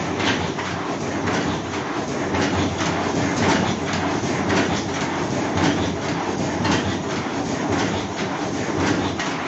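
Paper cup making machine running at speed, a steady rhythmic mechanical clatter of repeated strokes.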